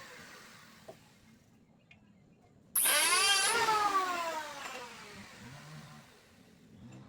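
Electric woodworking power tool: a sudden start about three seconds in with a brief harsh cutting hiss, then a motor whine that falls in pitch and fades over the following seconds as the tool winds down.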